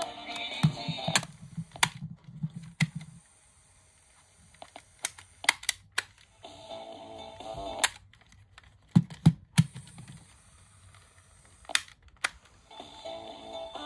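AIWA GS202 portable cassette player's mechanical keys clicking as they are pressed over and over, with a short low hum from the mechanism after some presses. The music from the tape, playing through small external speakers, stops about a second in, comes back briefly in the middle and starts again near the end.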